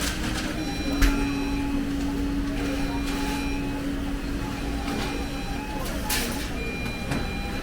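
Fast-food restaurant back-of-house sounds: electronic kitchen beeps that start and stop several times over a steady hum and a low drone, with a few short rushes of noise.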